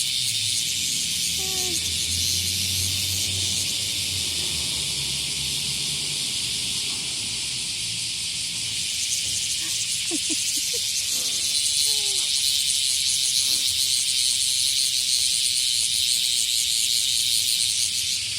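A chorus of cicadas shrilling: a dense, steady high hiss with a fast shimmering pulse, a little louder in the second half. A few faint short chirps come through around a second in and again about ten seconds in.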